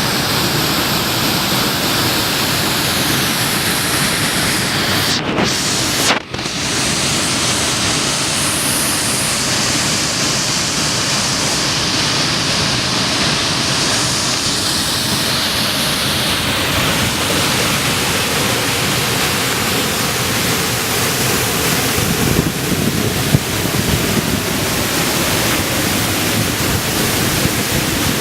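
Kivach waterfall on the Suna River: water rushing and crashing in a loud, steady roar, with a brief break about six seconds in.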